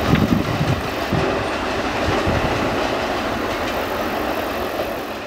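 A CN freight train's rear cars rolling away down the track, the wheels rumbling and clattering on the rails and slowly growing fainter.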